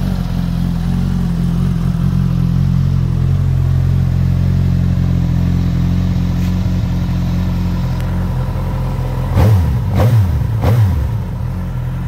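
2019 Suzuki GSX-S1000's inline-four engine idling steadily in neutral, then blipped three times in quick succession near the end, each rev rising and falling back to idle.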